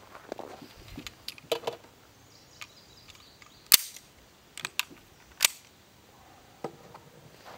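Metallic clicks and clacks of a Beretta M9 9mm pistol being handled with its magazine. There are a few light clicks, then two sharp, louder clacks, the first a bit under four seconds in and the second about a second and a half later.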